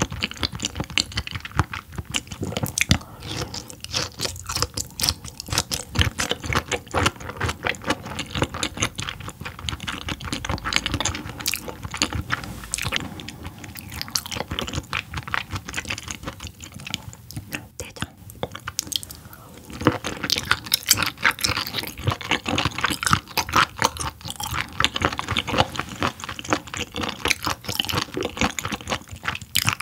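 Wet chewing of raw yellowtail sashimi: soft, irregular smacking and squishing mouth sounds, with a brief quieter lull a little past the middle.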